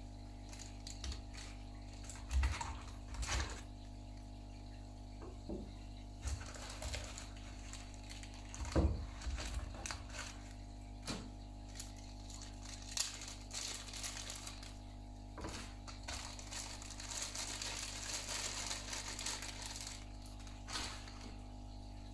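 Clear plastic packaging being handled and unwrapped: crinkling and rustling of plastic bags, with scattered small clicks and knocks of plastic parts, over a steady low hum. The crinkling is densest in the second half.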